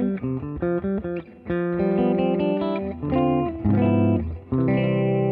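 Electric guitar played through a Universal Audio Teletronix LA-2A optical compressor pedal with a little overdrive. A quick run of single notes gives way to held notes and chords that ring on.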